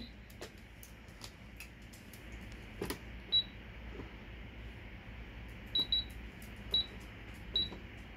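Cash register keys clicking, with a louder clack about three seconds in, then five short high beeps over the next few seconds as keys are pressed.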